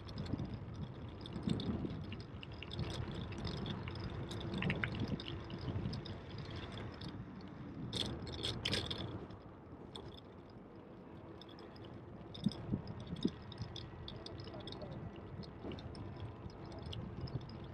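Bicycle riding noise: a steady low rumble of tyres and wind on the path, with light clicks and rattles from the bike and a short run of sharp clicks about halfway through.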